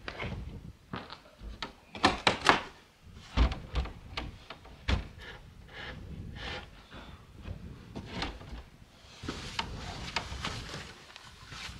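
Newly fitted wooden plank door on iron strap hinges being moved in its frame: a series of irregular knocks, bumps and clicks, the loudest about two to five seconds in.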